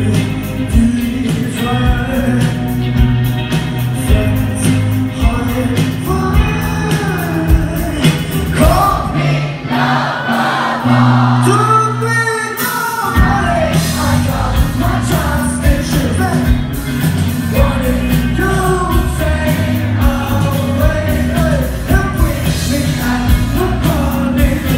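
Live band playing a song with sung vocals, electric guitar, bass and drum kit. About ten seconds in, the drums and low end drop out for a few seconds, then the full band comes back in.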